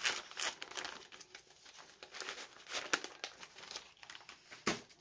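Clear plastic packaging of a cross-stitch kit crinkling as it is handled, in irregular crackles, with a short knock about four and a half seconds in.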